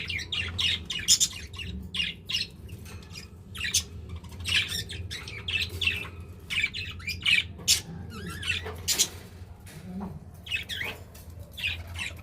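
Budgerigars chattering and squawking in a rapid stream of short, high chirps, with a steady low hum underneath.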